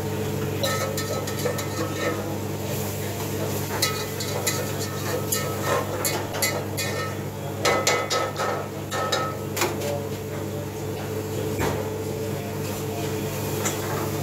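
Metal ladle knocking and scraping in a steel frying pan as the gravy is stirred over a gas burner, with sharp clinks of metal utensils that come thickest through the middle. A steady low hum runs underneath.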